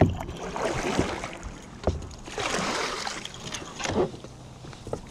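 Water sloshing and splashing against a plastic sit-on-top kayak's hull in swelling washes, with a few sharp knocks of hull and tackle being handled while a fish is played on the rod.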